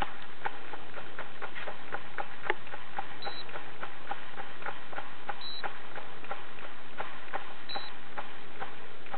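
Daiwa Super Tanacom EX 60 electric fishing reel with its spool being turned by hand: rapid ticking, about three or four clicks a second. A short electronic beep from the reel's counter sounds three times, about two seconds apart.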